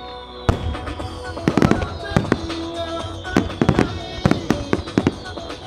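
Aerial firework shells of a music starmine bursting in quick succession: a sharp bang about half a second in, then a dense string of bangs. Music plays over loudspeakers underneath.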